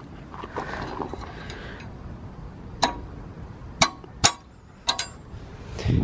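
Footsteps on gravel, with four sharp clicks in the second half and a low thump near the end.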